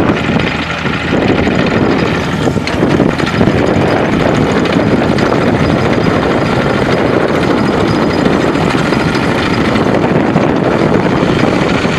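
John Deere 50D mini excavator's Yanmar 2.19-litre four-cylinder diesel running steadily and loudly while the machine travels on its rubber tracks.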